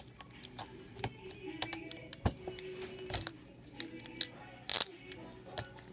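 Fingers working a laptop display cable's connector and tape at the back of an LCD panel: scattered small clicks and rustles as the connector is plugged in, with one louder short crackle nearly five seconds in.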